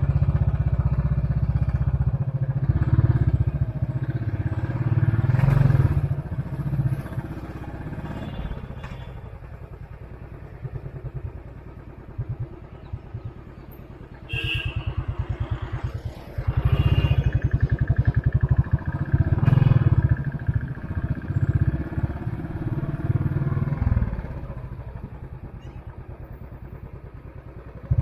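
Royal Enfield Classic 500's single-cylinder engine thumping while being ridden. It eases off to a quieter low running for several seconds in the middle, then pulls away loud again before settling lower near the end.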